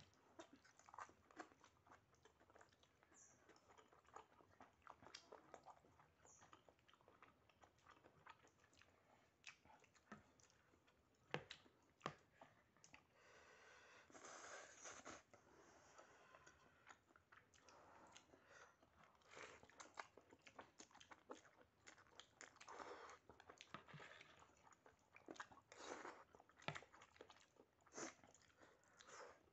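Faint close-up eating sounds of a person chewing a mouthful of spicy instant noodles with rice: a steady run of small wet smacks and clicks, with a longer noisy stretch about halfway through.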